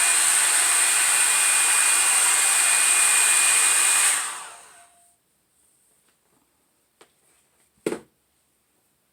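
Revlon One-Step hot-air brush hair dryer blowing steadily with a high whine, switched off about four seconds in and spinning down over about a second. Near the end come a faint click and then a louder knock.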